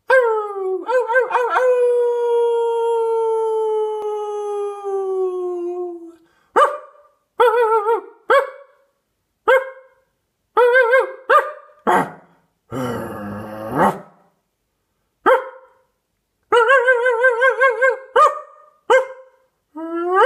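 A dog barking: a few quick barks run into one long howl that slowly falls in pitch, then single sharp barks with pauses between them. A little past halfway comes a rough, noisy sound, and near the end the barks come in quick runs.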